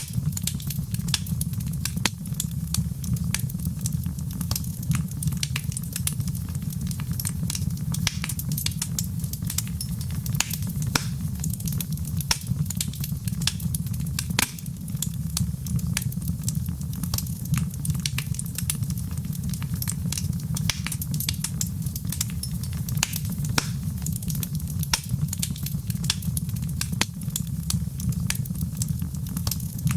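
Wood fire burning in a fireplace: a steady low rumble of flames with frequent irregular crackles and pops.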